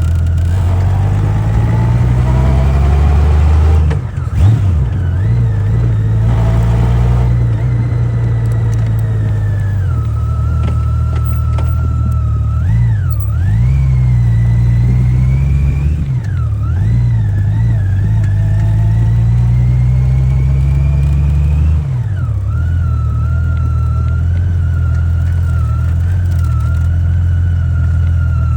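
Honda Gold Wing GL1500SE's flat-six engine running under way, its pitch climbing and then dropping several times as the bike speeds up and shifts or eases off, with a thin whine rising and falling along with it.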